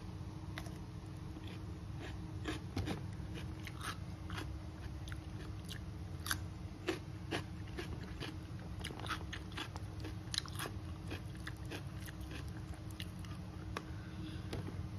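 Close-miked chewing and crunching of fried duck with rice: many small crisp clicks scattered irregularly, over a steady low hum.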